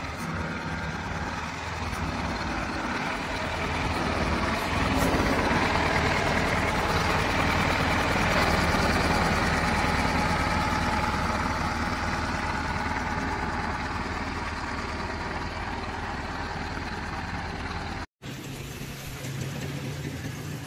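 Isuzu NPR truck's diesel engine running steadily, growing louder through the middle and easing off again. The sound breaks off for an instant near the end.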